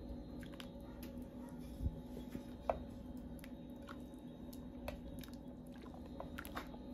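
Thick green salsa with pork in a clay cazuela being stirred with a wooden spoon: faint, scattered wet squelches and small pops from the sauce.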